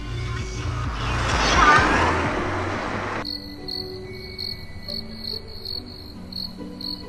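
A noisy whoosh swells and fades over the first three seconds. Then crickets start chirping suddenly, about three to four chirps a second, over soft, low, sustained music notes.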